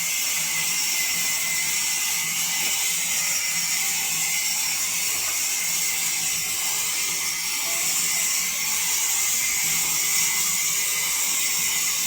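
Sawmill saw running, a loud, steady, high-pitched hissing noise that doesn't let up.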